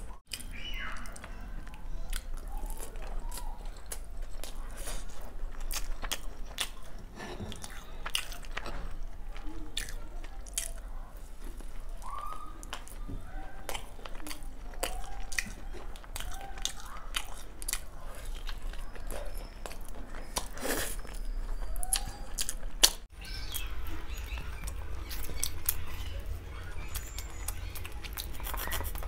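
Close-miked eating sounds: chewing with wet mouth clicks and lip smacks while biryani is eaten by hand. One sharp click, the loudest sound, comes about three-quarters of the way through.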